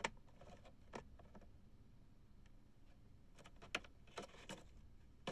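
Scattered light clicks and knocks of plastic takeout food containers being handled and set down on a table, about half a dozen separate taps.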